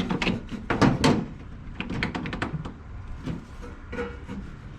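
Sharp knocks and clicks of hands handling heavy battery cables and their lugs while they are fitted to an inverter's terminals. There are several knocks in the first second, the loudest about a second in, then lighter scattered clicks.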